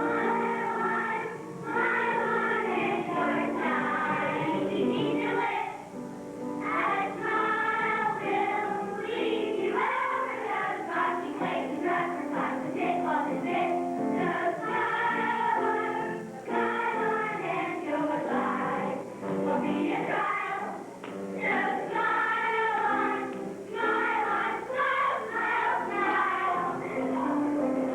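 A choir of young voices singing a song with instrumental accompaniment.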